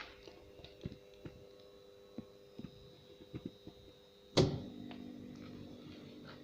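16B16KA screw-cutting lathe running quietly with a steady hum and scattered light ticks. About four seconds in there is one sharp knock, after which the running tone fills out with extra lower hum.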